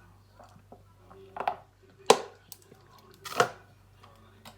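A person taking a drink: three short noisy sounds spaced about a second apart, the middle one a sharp click, over a faint steady hum.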